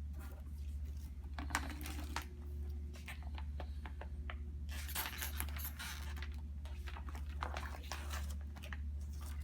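Hands handling IV supplies: crinkling and tearing of plastic packaging with small sharp clicks of plastic parts, in irregular spells about 1.5, 5 and 7.5 seconds in, over a steady low electrical hum.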